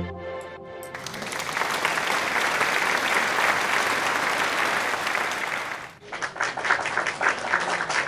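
Pencil scratching quickly on paper while shading in dark hair, a dense steady scratching at first, then after about six seconds quicker separate back-and-forth strokes.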